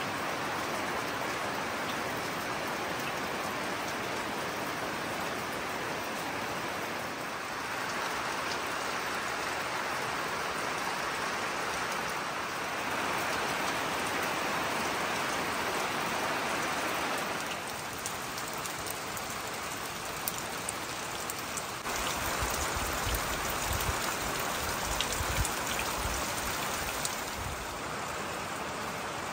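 Steady rain falling on the forest and the hut roof, with drips coming off the roof edge. For a few seconds in the last third it turns louder and deeper, with sharper drip ticks.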